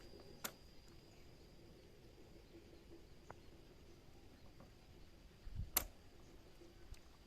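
Quiet background with a faint, steady high-pitched whine, broken by a sharp click about half a second in and a louder click with a dull knock just before six seconds.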